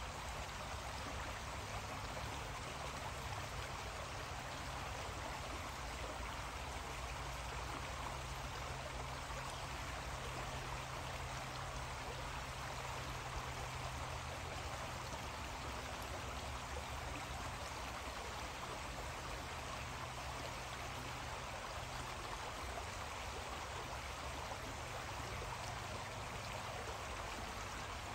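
Creek water flowing steadily: an even rushing hiss, with a faint low hum underneath.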